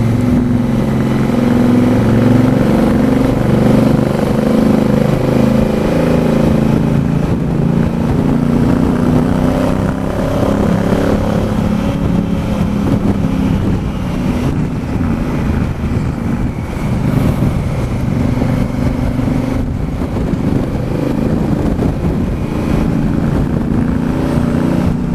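Motorcycle engine running on the move, heard from on board, its revs rising and falling in steps as the rider changes gear.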